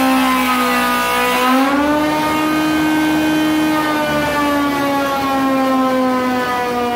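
Stationary spindle moulder running with a steady, high whine as a panel is fed past its cutter to mill a 45-degree bevel; the pitch dips and then rises about two seconds in, then sags slowly.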